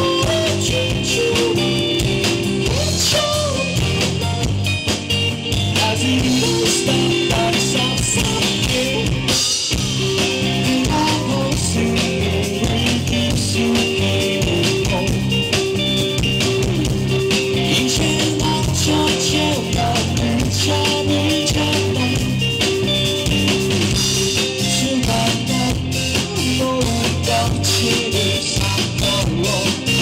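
Live rock band playing a song: electric guitar and drums with bass, and a male lead vocal at times.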